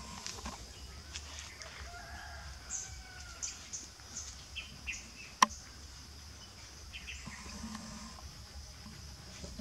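Quiet background ambience with scattered short bird chirps and a few faint calls, and a single sharp click a little past halfway.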